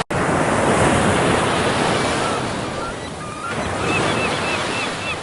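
Loud, steady rush of ocean waves and surf, with a run of short, repeated high chirping calls over it in the second half.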